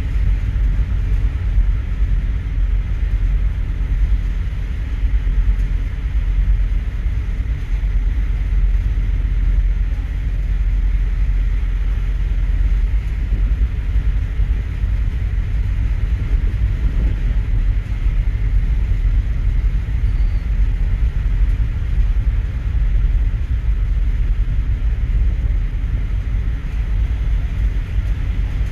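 Steady low rumble of the ferry Santorini Palace's engines, heard from the open deck as the ship pulls away from the quay.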